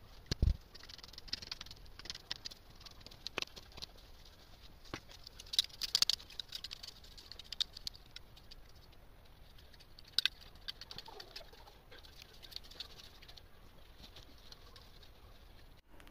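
Loose, cloddy garden soil being scraped and broken up with a long-handled tool: irregular crackles and gritty scrapes, clustered around the middle and again about two-thirds of the way through. A single low thump comes about half a second in.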